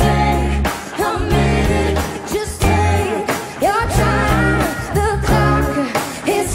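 Live pop band playing, with a lead voice singing over heavy bass notes that move in a steady pulse.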